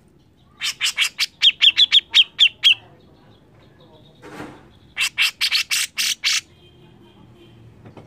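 Grey-cheeked bulbul (cucak jenggot) calling in two runs of rapid, harsh chattering notes: about eleven in the first run, then a pause, then about eight more a couple of seconds later.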